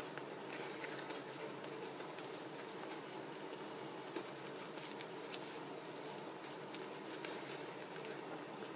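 Shaving brush swirling shaving-cream lather over a bearded face: faint, soft brushing.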